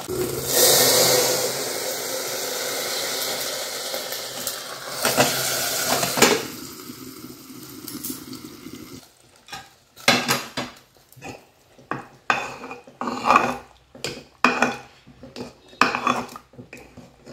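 Hot mustard-oil tempering with garlic and green chilli poured into a pressure cooker of khichdi. It hisses sharply as it hits and sizzles for several seconds before dying down. Then a metal ladle knocks and scrapes irregularly against the pressure cooker as the khichdi is stirred.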